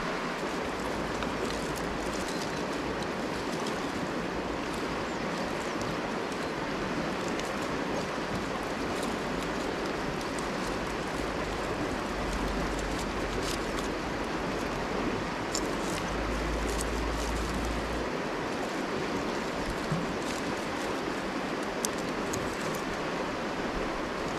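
Steady rush of a river flowing over stones, with occasional faint clicks of dry sticks being handled.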